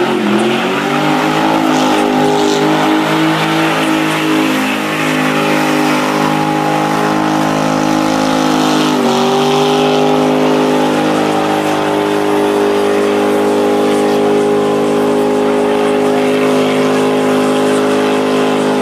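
Car doing a burnout: the engine revs climb at the start and are held high and steady while the tyres spin and screech, with a brief dip in revs about halfway through before they pick back up.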